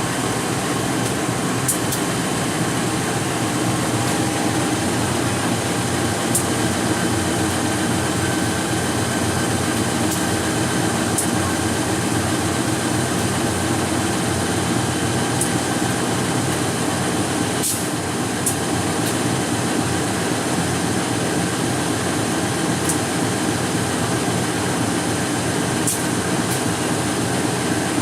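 Passenger train hauled by a CC203 diesel-electric locomotive running past, a steady rumble and hum of the train with a few brief sharp clicks.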